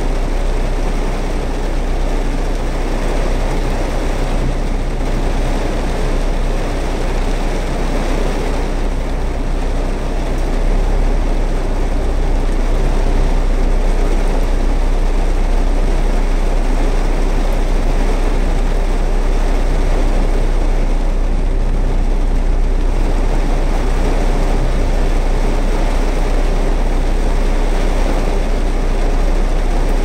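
Heavy rain falling steadily, a dense even hiss with a strong deep rumble underneath, growing slightly heavier about ten seconds in.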